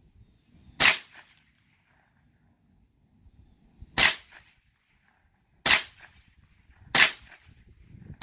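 A rock being slammed down on a smashed phone: five sharp cracking strikes at uneven gaps of one to three seconds, the last right at the end.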